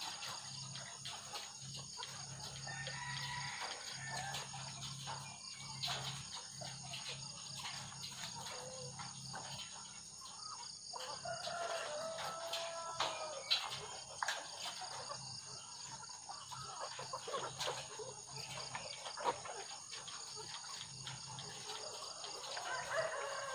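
A flock of caged white ready-to-lay pullets giving short calls and clucks, several calls spread through, with scattered small clicks and taps.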